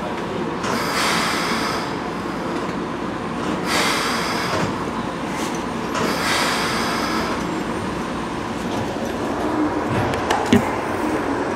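Keikyu 2000-series electric train heard from behind the cab: a steady rumble with three short hisses of air, each about a second long. Near the end a few sharp clicks as the train begins rolling over the points.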